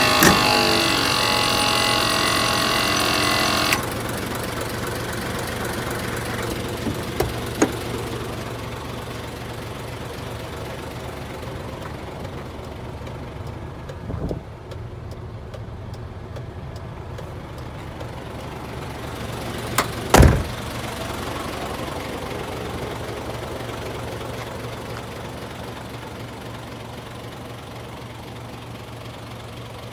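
Hino heavy truck's diesel engine idling steadily, a low, even hum. A shrill whine of several tones runs over it and cuts off suddenly about four seconds in, and there are a few short thumps, the loudest about twenty seconds in.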